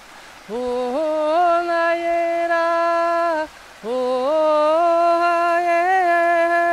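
Improvised singing by a single voice: two long held phrases, each sliding up at its start into sustained notes, with a short breath between them about three and a half seconds in.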